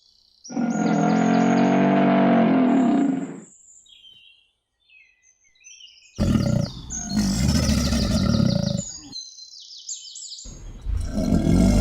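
Alligator bellowing: three long, deep calls of about three seconds each, the last starting near the end. Small bird chirps come in the gaps between them.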